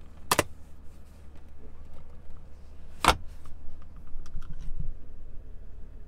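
Two sharp plastic clicks, about three seconds apart, from the rear centre armrest's fold-out cupholders being worked by hand. A few lighter clicks and taps follow near the end, over a steady low hum.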